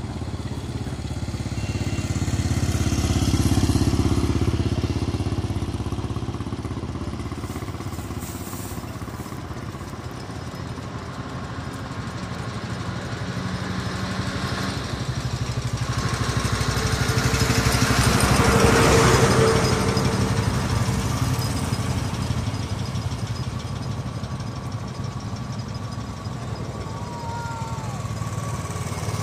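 Motorcycle engines running as the bikes ride past. The sound swells twice, about four seconds in and again past the middle, then fades each time.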